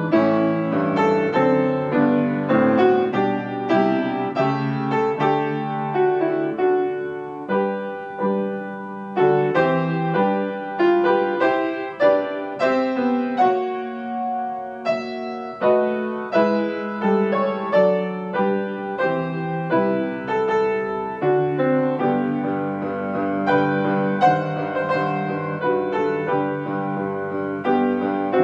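Solo grand piano playing a slow, gentle piece, with notes and chords struck about once or twice a second and left to ring.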